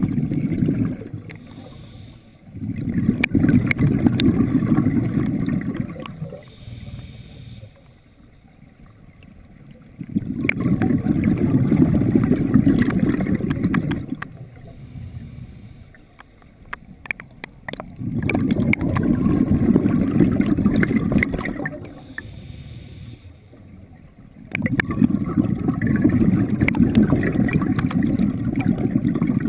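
Scuba diver breathing underwater: four long exhalations of bubbles rushing from the regulator, about every seven to eight seconds, with quieter inhalations and faint clicks between.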